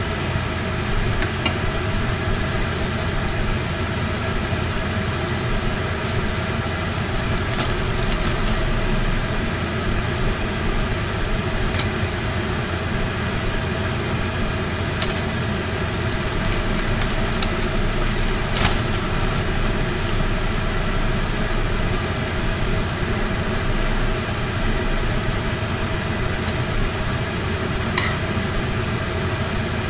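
A steady mechanical hum with a few light clicks of a fork and spatula against a frying pan as a tortilla is filled and cooked.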